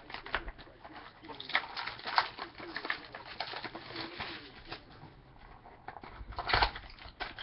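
Cardboard and cards being handled while a trading-card mini box is opened: a run of short rustles and clicks, with a louder scrape about six and a half seconds in.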